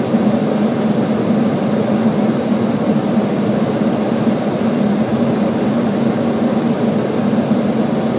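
Steady flight-deck noise of a Boeing 737 on final approach: rushing airflow and engine noise with a constant low drone, unchanging throughout.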